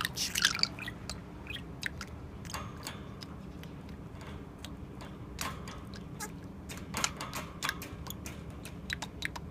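Budgerigar chattering softly: scattered irregular clicks mixed with short chirps.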